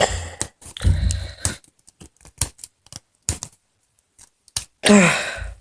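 Packaging being cut and torn open with a knife: a sticker ripping, rustling and scraping, then a few separate sharp clicks.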